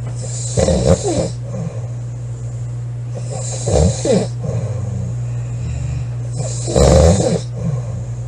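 A young woman snoring loudly in her sleep: three rasping snores about three seconds apart, over a steady low hum.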